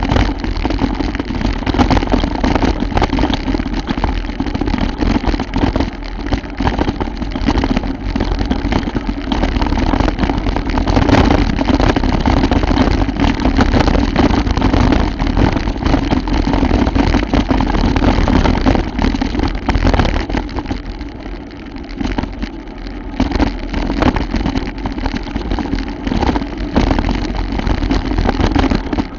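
Bicycle ridden over a rough, muddy trail: a steady rushing noise with frequent rattles and knocks, easing off briefly about 21 seconds in.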